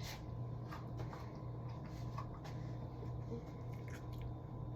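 A person chewing a slice of raw tomato, with scattered soft wet clicks and squishes from the mouth. A steady low hum runs underneath.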